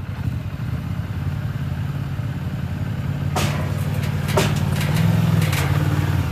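ATV engine running as the quad is ridden toward the trailer, its note rising a little about five seconds in. A few sharp knocks and clanks come through over the middle of the stretch.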